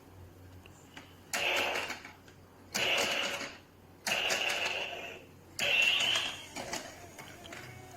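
An electronic Nerf shooting target plays four short sound effects as the game starts, each under a second long and roughly a second and a half apart.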